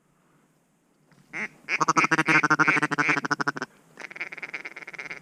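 Duck call blown close by: a loud run of rapid quacks lasting about two seconds that stops abruptly, followed by a quieter fast chatter.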